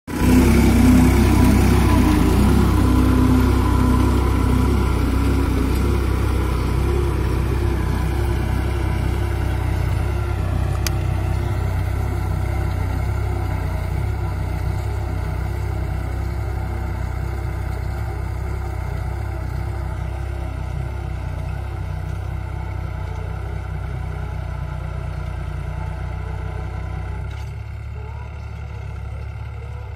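New Holland tractor's diesel engine running steadily under load as it pulls a tine cultivator through stubble, slowly growing fainter as the tractor draws away.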